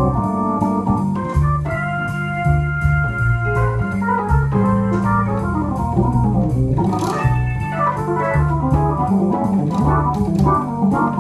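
Jazz organ playing a swing tune: a bass line under chords and a melody, with a chord held a couple of seconds in and a quick upward run about seven seconds in.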